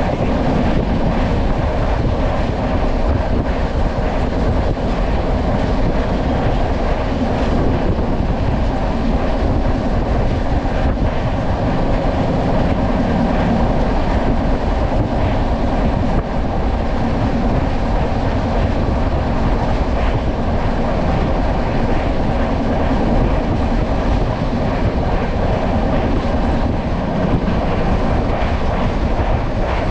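Steady rumble and rush of a moving express passenger train, heard from aboard a coach.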